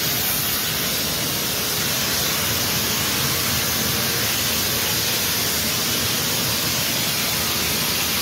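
Steady, loud rushing noise with no breaks, typical of the fans and snow-making blowers running in an indoor snow hall.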